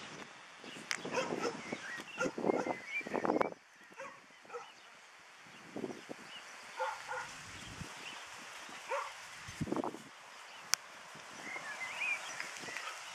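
Dogs barking during play: a quick flurry of barks between about one and three and a half seconds in, then scattered single barks.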